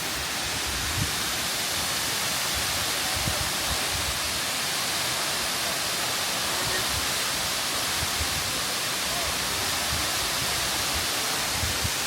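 Steady, unbroken rush of a tall waterfall, about 300 feet high, pouring into a deep plunge pool.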